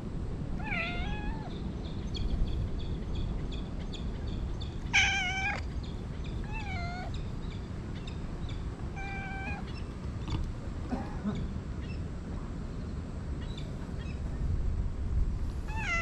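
A cat meowing in short, repeated calls, about six in all, the loudest about five seconds in and another starting right at the end, over a steady low background rumble.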